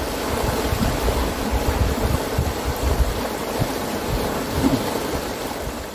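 Steady rush of a fast river's rapids, with low, uneven rumbling gusts buffeting the microphone.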